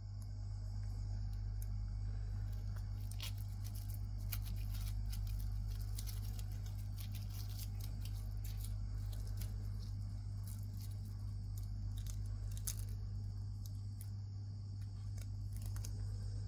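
A baby monkey chewing and tearing apart a cicada, making irregular crisp crunches and clicks, thickest through the middle, over a steady low hum.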